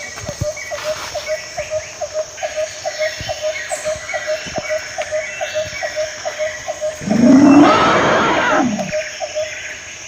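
An animal, bird or frog, repeats a short low note about three times a second, with fainter chirping from other birds or insects. About seven seconds in, a loud, rough cry lasts around two seconds.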